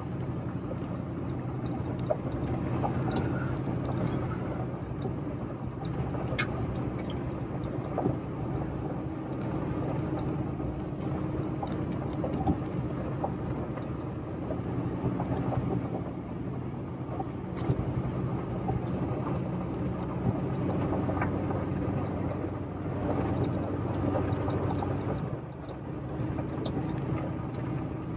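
Pickup truck driving slowly on a gravel road, heard from inside the cab: a steady engine hum with scattered clicks and crunches from gravel under the tyres.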